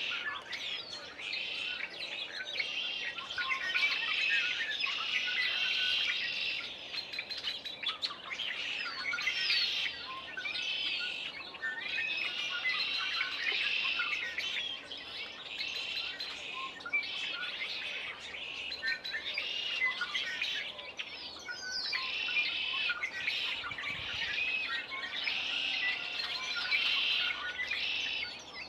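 Yard chorus of songbirds in spring: many overlapping chirps and warbled songs, with loud red-winged blackbirds among them.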